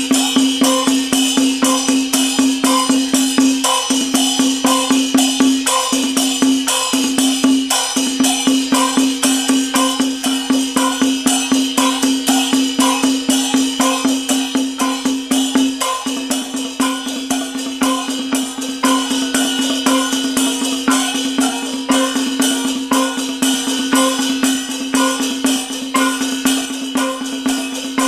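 Chinese temple gong-and-drum (lo-ko) percussion music: fast, even strikes of drum, gongs and cymbals at about four a second, with a steady held tone underneath.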